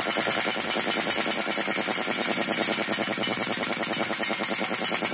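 A 1-inch drive pneumatic impact wrench hammering steadily in rapid, even blows on a large rusted dozer sprocket nut that has not yet broken loose.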